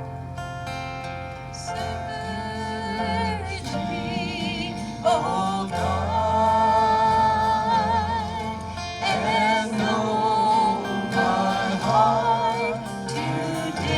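Singers performing a closing gospel hymn over instrumental accompaniment. The voices come in about two seconds in and hold long notes with vibrato.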